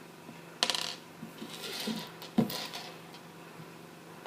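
Parts of an old printer being handled during disassembly: a short plastic rattle about half a second in, some scraping, and one sharp knock near the middle.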